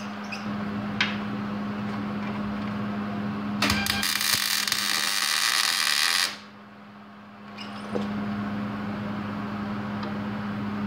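MIG welder arc crackling for about two and a half seconds, from about three and a half seconds in, as a tack weld is laid on a Jeep's steel frame. It cuts off sharply, over a steady low hum.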